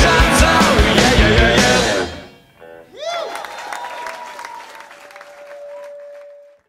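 Live rock band playing with drums, guitar and singing, stopping about two seconds in. After a short gap, a pitched sound swoops up and down, then a held tone fades out over faint crowd noise.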